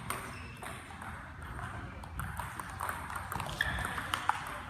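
Table tennis rally: the celluloid-type ball clicking off bats and table, the hits coming quickly in the last second or so, over a low murmur of people in the hall.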